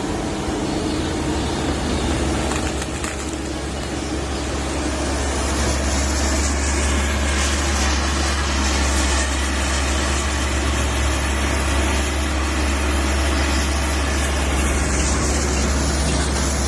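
Komatsu PC130 excavator's diesel engine running under working load while digging out a tree stump. It is a steady, deep hum that grows louder about five seconds in and then holds.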